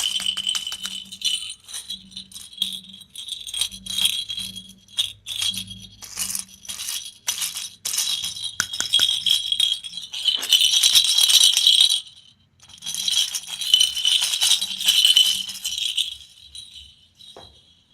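Small hard candies rattling and clicking against plastic: scattered clicks, then two long spells of steady shaking, about ten and thirteen seconds in.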